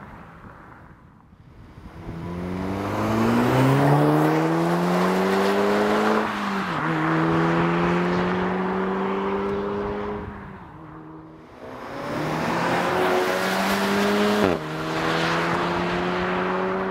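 Turbocharged 2.0 TSI four-cylinder SEAT Leon Cupras accelerating hard away one after the other. The first engine revs up, drops in pitch at a gear change about six seconds in, pulls on and fades. The second does the same from about twelve seconds, with a sharp gear change about two and a half seconds later.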